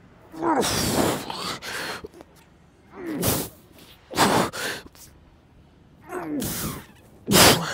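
A man's forceful breaths with each pike press-up: about five loud exhalations a second or so apart. Several carry a short voiced groan that falls in pitch, from the strain of the exercise.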